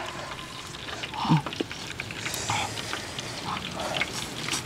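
Eating noises from people eating very spicy food: short scattered mouth sounds and breaths, with light clicks of chopsticks against bowls.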